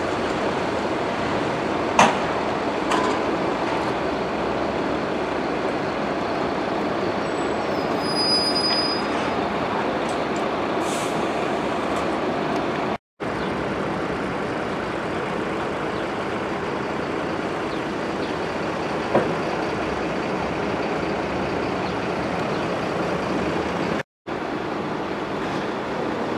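Heavy diesel trucks running in a truck yard, a steady engine and traffic noise with a few sharp clicks and a brief high whistle about eight seconds in. The sound drops out for a moment twice.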